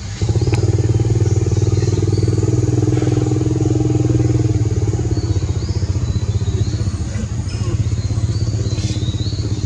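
An engine running steadily, a low pulsing hum that comes in abruptly a moment after the start.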